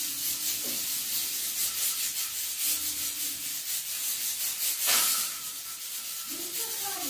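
Steady hiss from a gas stove with a pressure cooker on the lit burner, swelling briefly about five seconds in.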